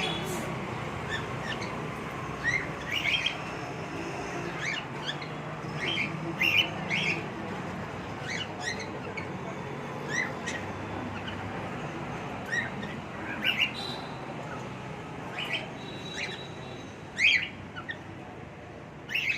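Birds chirping: short, separate chirps and calls coming irregularly, a few every couple of seconds.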